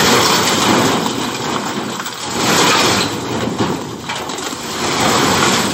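A load of large rubble stones sliding off a tipper lorry's raised bed, rumbling and clattering onto the ground. It comes in three surges: at the start, about halfway through, and near the end.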